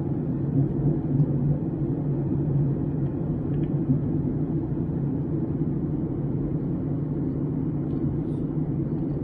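Airliner cabin noise in flight: a steady rumble of the jet engines and airflow, with a faint thin whine held steady above it.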